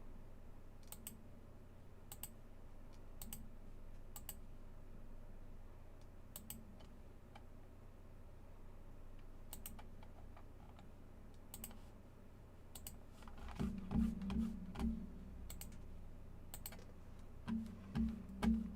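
Scattered, irregular clicks, like keys or a mouse on a computer, then a run of louder low thuds in the last five seconds.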